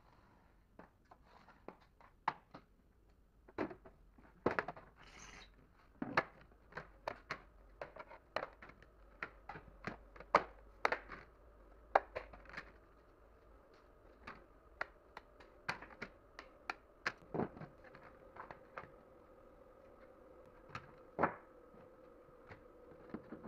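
Irregular sharp clicks and light knocks of thin wood-grain boards being snapped apart along knife-scored lines and set down on a table, with a brief scraping hiss about five seconds in.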